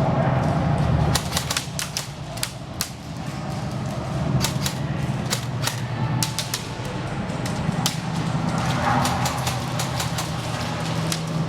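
Airsoft guns firing: sharp snaps, single shots and short strings at irregular intervals, over a steady low hum.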